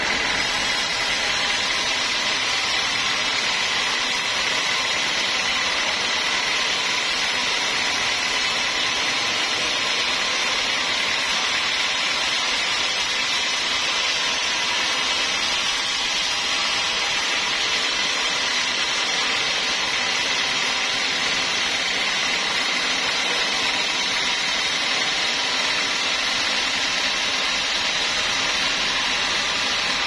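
Band sawmill blade cutting lengthwise through a large mahogany log: a steady, unbroken sawing noise with a faint high whine, over the running machine.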